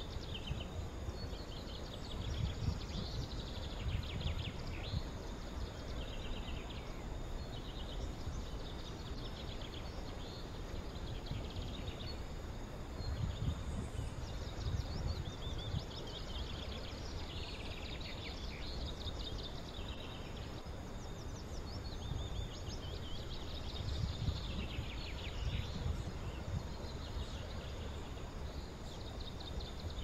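Several birds chirping and trilling in quick, irregular phrases over a low, gusty rumble of wind on the microphone that swells a few times.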